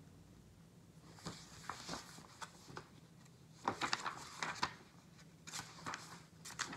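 Pages of a large picture book being turned by hand: a string of short paper rustles and flaps starting about a second in, loudest around the middle.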